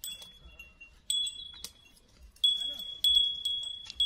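A metal bell hung on an elephant's neck cord ringing as the elephant moves and browses. It gives several bright rings at uneven intervals, louder in the second half.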